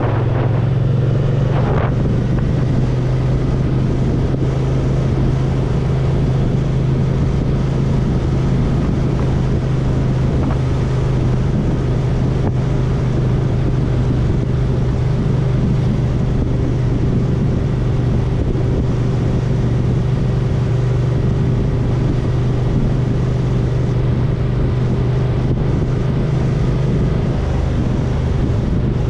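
Yamaha TDM900's parallel-twin engine running at a steady cruise, holding one even drone, with wind buffeting the helmet camera's microphone.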